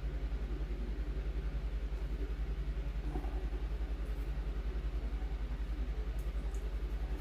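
Steady low machine hum with a fast, even pulse of about ten beats a second, with a few faint ticks about three and six seconds in.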